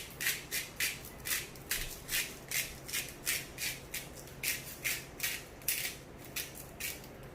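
Pepper shaker shaken over chicken in quick, even strokes, about three a second, each stroke a short rattling hiss of ground pepper.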